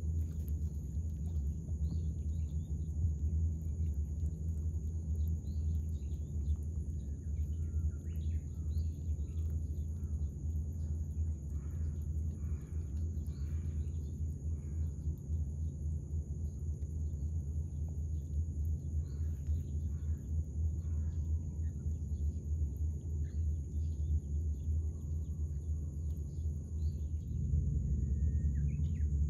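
Outdoor ambience: a steady low rumble, with scattered short bird chirps and a steady high-pitched whine. The rumble grows a little louder near the end.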